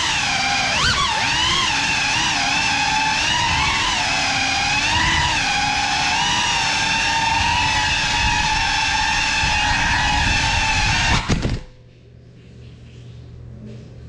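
Small FPV drone's electric motors and propellers whining, the pitch rising and falling with the throttle. About eleven and a half seconds in, after a couple of sharp knocks, the whine cuts off suddenly, leaving a faint low hum.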